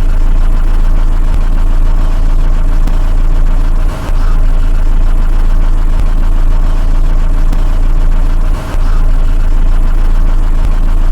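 Mitsubishi Xpander's engine idling steadily with a loud low hum, broken by brief dips in level about four seconds in and again near nine seconds.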